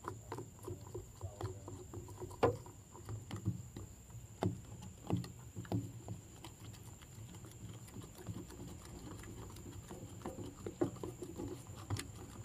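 Plastic spoon stirring glue tinted with food colouring in a plastic container: scattered, irregular soft clicks and taps of the spoon against the sides.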